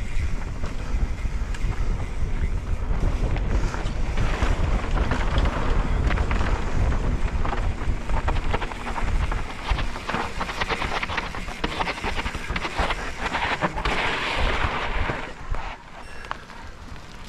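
Wind buffeting a helmet-mounted action camera's microphone during a fast mountain-bike descent, over the crackle and crunch of the Pivot Firebird's tyres on dirt and dry leaves. The noise eases off near the end as the bike slows.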